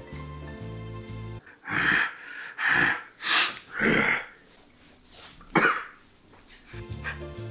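A man coughing hard, about four coughs spaced a little over half a second apart, then one short sharp cough. The background music stops for the coughing fit.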